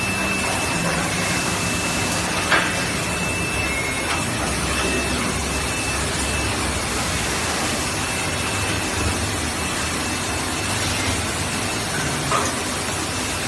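Steady hiss and hum of factory-floor machinery, with a thin high whine through the first half. Two sharp clicks sound over it, the louder about two and a half seconds in and a smaller one near the end.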